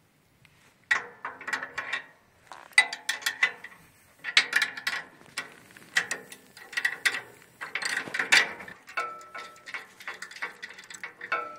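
Ratchet wrench clicking in repeated short bursts of rapid strokes as screws are undone on the housing of an AGM WC X5G wood chipper.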